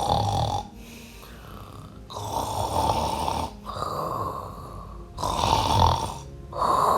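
Loud snoring, one snore after another about every second and a half. In the story it is the sleeping dog snoring so loudly that it wakes the other animals.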